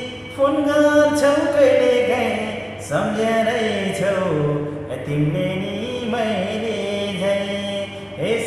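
A man singing a Nepali song in a slow style, holding long notes that bend and waver, with short pauses for breath between phrases.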